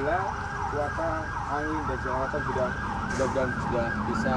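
A siren wailing in a fast rising-and-falling yelp, about two to three sweeps a second, held at a steady level.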